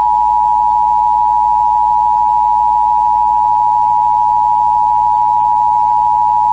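Emergency Alert System attention signal: two steady tones sounding together in one loud, unbroken alarm drone. It warns that an emergency message is about to be broadcast.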